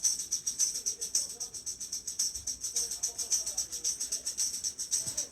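Continuous rapid rattling, like a shaker, with bright hissy strokes several times a second and no letting up. This is the mystery rattling sound that the clue hunt is about.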